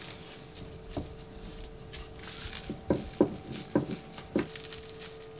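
Wooden rolling pin rolled over a block of butter wrapped in cling film on a stone countertop: plastic crinkling and soft knocks of the pin and hands, one about a second in and a quick run of them in the second half.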